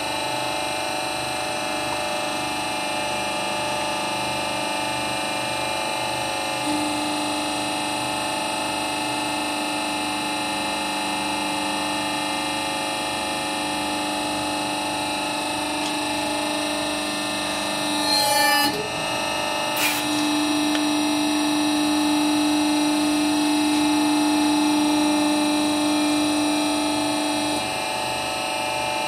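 Hydraulic press pump motor running with a steady whine while the ram works, the tone growing stronger about a third of the way in. About two-thirds through, a short squeaking crackle as the ram squashes a hollow rubber ring, then a click and a louder steady hum that stops shortly before the end.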